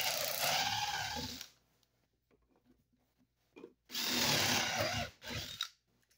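Power drill boring into a wooden sill plate, running in two bursts of about a second and a half and about a second, with a brief third burst right after the second.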